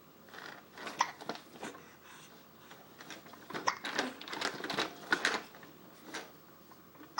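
Plastic toys clattering and knocking on a baby's ExerSaucer activity centre, in two bursts of quick clacks, the second longer and busier.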